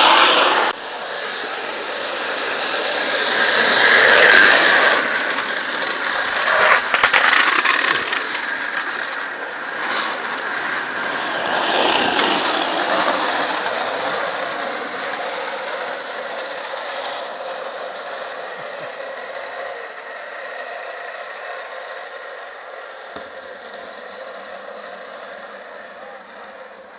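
Homemade wooden racing carts on ball-bearing wheels rolling fast down an asphalt road: a harsh rattling rumble that swells as each cart passes close, several times in the first dozen seconds, then fades away downhill.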